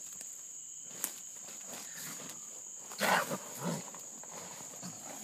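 Crickets chirring steadily and high-pitched. About three seconds in comes a short, harsh snarl from a pinned raccoon, followed by a couple of fainter ones.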